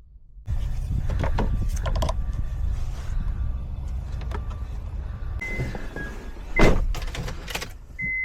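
Honda car engine starting about half a second in on a newly programmed key, then running steadily. A sharp knock a little past halfway and a short electronic beep near the end.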